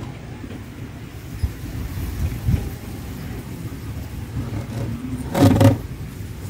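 Handling noise as the wooden lid of an Asian honey bee (Apis cerana) hive box is taken off: a few soft knocks over a low steady rumble, with one short, louder sound about five and a half seconds in.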